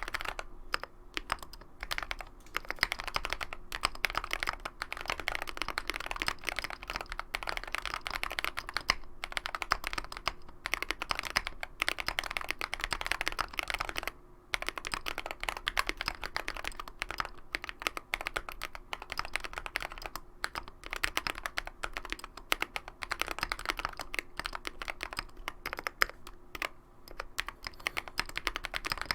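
Fast continuous typing on a mechanical keyboard with lubed and filmed Holy Panda tactile switches in an aluminium plate, a dense run of keystroke clacks broken by a few short pauses.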